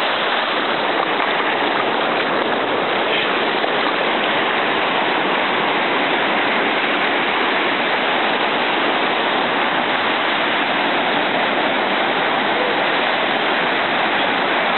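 Ocean surf breaking and washing up the beach, a steady, unbroken hiss.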